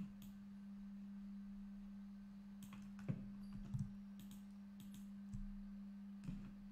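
A steady hum, with about six scattered computer mouse clicks as colours are picked and painted in software.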